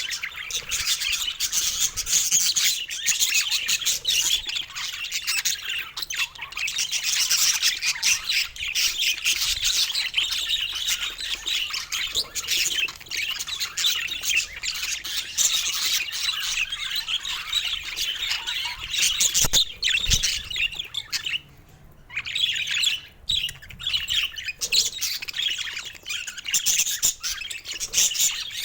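Budgerigars chirping and chattering in a dense, continuous stream, with a brief pause a little after 21 seconds in.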